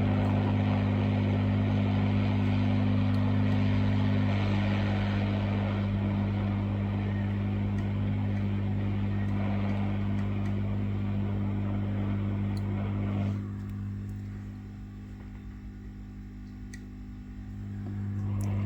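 Hot air rework station blowing, a steady hiss of air over a low hum, reflowing the solder to reseat a phone charging port. About thirteen seconds in the airflow hiss drops away, leaving the hum.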